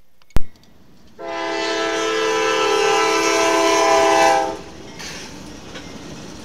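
A sharp click about half a second in, then a CSX GE ES40DC locomotive's multi-chime air horn sounds one long chord for about three seconds and cuts off, leaving the train's steady rolling noise.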